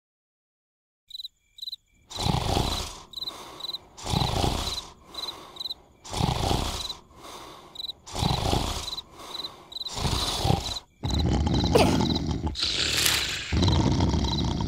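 Cartoon snoring: loud rasping snores about every two seconds, each followed by a softer breath, growing louder and more continuous near the end. Crickets chirp throughout, starting about a second in.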